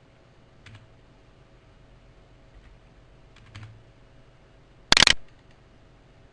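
Computer keyboard keys being typed: a couple of faint single clicks, then a quick loud run of keystrokes about five seconds in.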